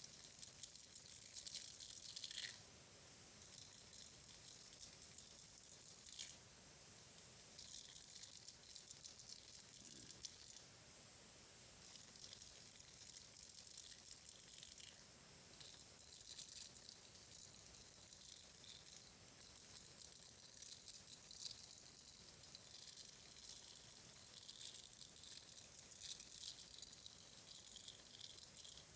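Faint, fine crackling and rustling ASMR trigger sounds made close to the microphone. They come in bouts of a few seconds with short, quieter pauses between them.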